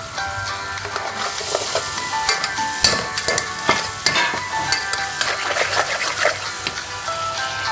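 Onions frying with a sizzling hiss in an aluminium pot, with a spoon scraping and knocking against the pot as they are stirred, from about a second in until near the end. Background music plays throughout.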